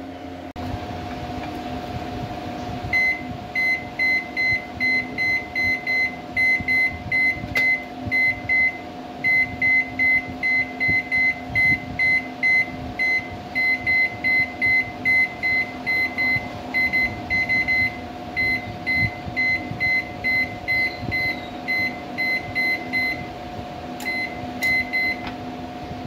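Microwave oven control board's buzzer beeping in quick succession, about two short beeps a second for some twenty seconds with a few brief pauses, each beep answering a press of a membrane keypad button as the keys are tested after a faulty resistor on their keypad line was replaced. A steady hum runs underneath.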